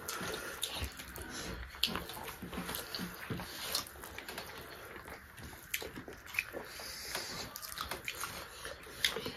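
Eating sounds: wet chewing and lip-smacking, with fingers mixing rice on a banana leaf, heard as a scattering of small irregular clicks and squelches.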